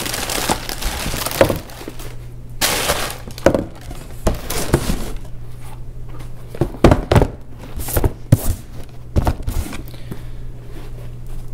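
Tissue paper rustling and crinkling as a sneaker is unwrapped from its shoebox, then several sharp knocks and thuds in the second half as the shoes and the cardboard box lid are handled and set down on the box.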